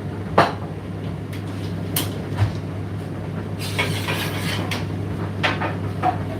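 Indesit IDC8T3 condenser tumble dryer running with a steady low hum, while the load tumbling in the drum gives irregular knocks every second or so.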